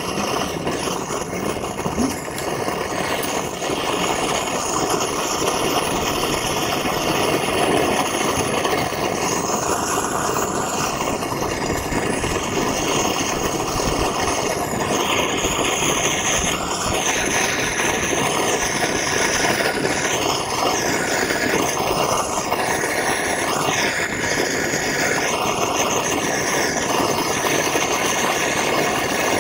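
Gas blowtorch flame burning steadily as it heats aluminium bars in a steel frying pan to melt them. Its sound shifts a few times in the second half.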